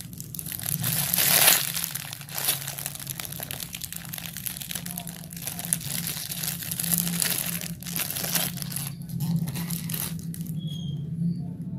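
Clear plastic wrapper crinkling and rustling as a squishy toy inside it is squeezed and turned in the hands. The crinkling stops about ten seconds in.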